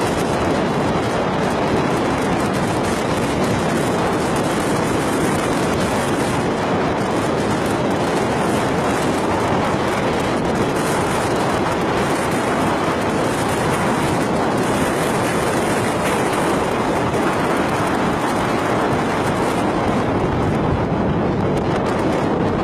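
Steady rushing noise of wind and water, with no distinct crashes or tones, like wind on the microphone out on the water.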